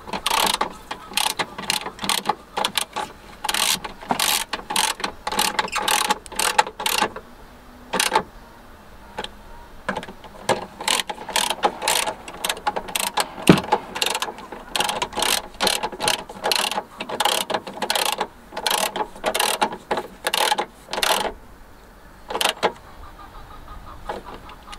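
Hand socket ratchet clicking in quick runs of back-and-forth strokes as bolts are tightened, with short pauses about eight seconds in and again near the end.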